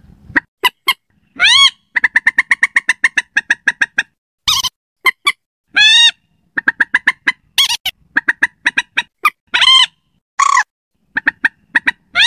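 Common moorhen calls played as a bird lure: a string of loud, sharp call notes, including a quick stuttering run of short notes about two seconds in and several longer calls that rise and fall in pitch.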